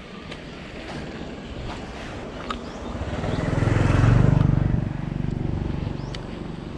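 Engine of a passing motor vehicle, its steady low hum swelling to a peak about four seconds in and then fading away.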